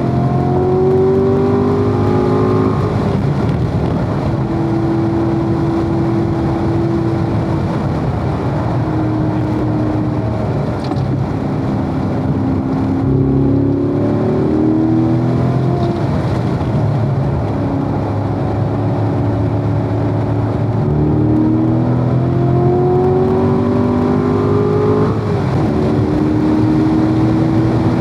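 A Corvette's V8 engine heard on board at track speed. It rises in pitch under acceleration, drops back at each gear change or lift, and holds steady revs between, over constant wind and road noise.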